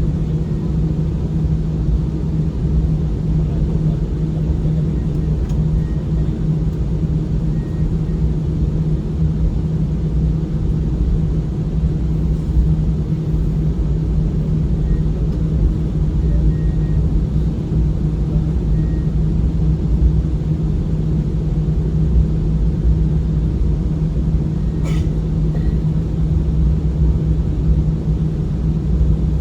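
Steady low engine drone and rumble of an airliner heard from inside the passenger cabin, with a constant hum and one brief click about 25 seconds in.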